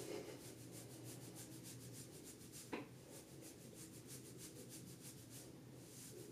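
Faint rhythmic rubbing through wet hair, several short strokes a second, with one light knock about three seconds in.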